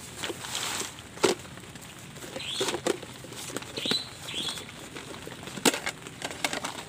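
Handling of camping gear: fabric and plastic sheeting rustle, with scattered clicks and knocks as a plastic storage case is picked up and its lid opened. A few short high squeaks come in the middle.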